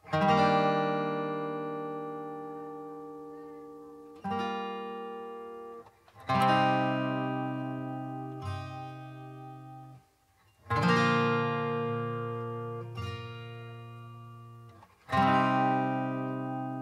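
Background music: acoustic guitar chords, each struck once and left to ring out slowly, five in a row a few seconds apart.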